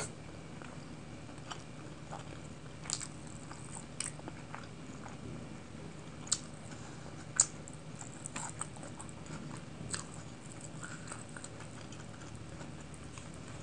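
Close-miked chewing and wet mouth sounds of someone eating saucy kadai chicken by hand, with scattered sharp smacks and clicks. Two of these stand out loudly about six and seven seconds in.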